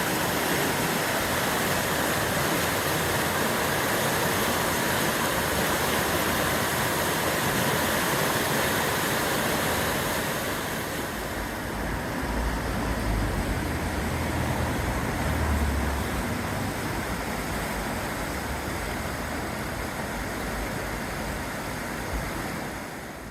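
Steady rushing of the swollen, snowmelt-fed River Skell in spate. The sound gets a little duller about halfway through, with a few low rumbles, and fades out at the very end.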